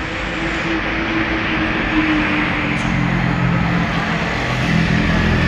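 Road traffic noise. A heavy vehicle's engine hum grows louder about halfway through as it comes closer.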